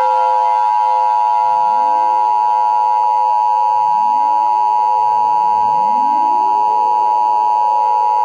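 Emergency Alert System attention signal: the steady two-tone alarm, held unbroken at full loudness. Underneath it, four fainter low sounds sweep upward in pitch, the first about a second and a half in and the rest over the next few seconds.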